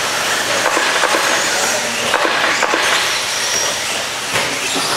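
Several electric RC stadium trucks racing on a dirt track: a steady hiss of motors and tyres, with short high-pitched motor whines rising and falling and scattered clattering knocks as the trucks land jumps and strike the track.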